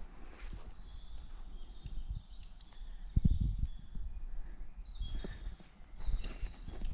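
A small songbird repeating a short high note, about three times a second. Under it is a low rumble with low thumps, the loudest about three seconds in.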